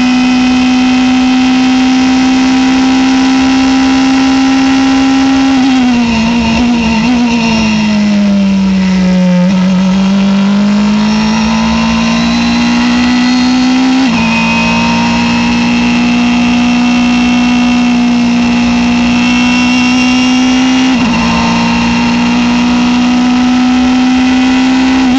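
Norma prototype race car engine heard from the cockpit, running flat out with a steady high note, then falling as the car brakes and downshifts about six seconds in. The note climbs again as it accelerates out of the corner and holds high through the upshifts, with a brief break near the end.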